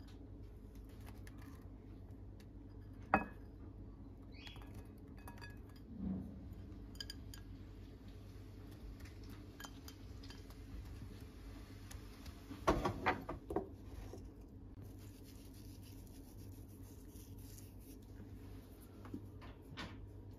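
Ceramic bowls clinking and tapping against each other as raisins and green olives are tipped from small bowls into a large salad bowl. There is a sharp clink about three seconds in, a duller knock at about six seconds, and a quick run of clinks and taps just past the middle, over a low steady hum.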